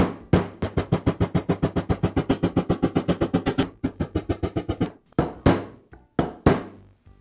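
Hammer tapping steel roll pins into a nail gun's metal housing to secure the trigger valve. A rapid run of light, ringing taps, about nine a second, for the first three and a half seconds, then slower taps, and four harder separate blows near the end.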